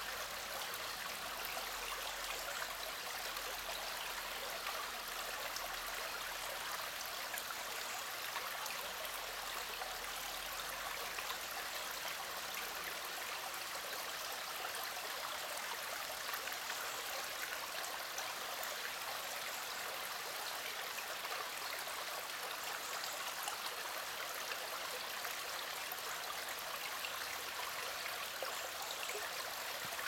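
Small, shallow river flowing over rocks: a steady rush of water that is mostly high and hissing, with little low rumble.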